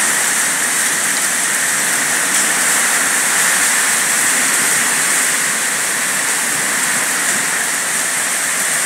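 Heavy downpour with hail falling in it, a steady dense rush of rain that does not let up.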